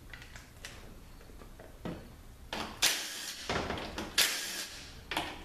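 Tool noise from unbolting the valve body of a THM400 automatic transmission: a few light clicks, then from about halfway a series of short, rasping bursts as the bolts are worked loose.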